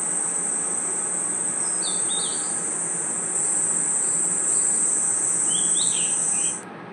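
Crickets trilling as a steady high-pitched night chorus, with a few short falling bird chirps about two seconds in and again near the end. The chorus cuts off abruptly near the end, leaving a quieter background hiss.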